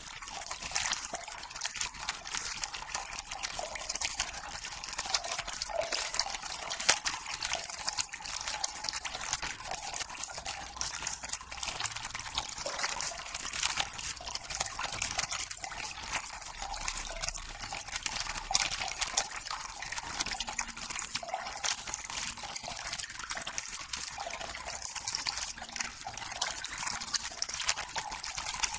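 Black nylon toiletry bag handled close to the microphone: continuous crinkling and rustling of the fabric, with many small irregular clicks.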